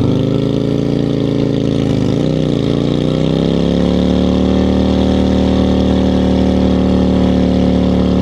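Motorcycle engine running under steady throttle. Its pitch dips and wavers about two seconds in, then climbs and holds steady.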